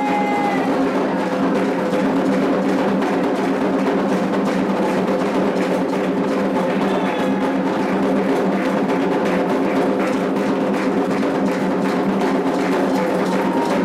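Candomblé ceremonial drumming on atabaque hand drums, a steady, unbroken rhythm.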